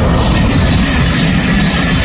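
A train passing close by: a loud, steady rumble, heavy in the low end.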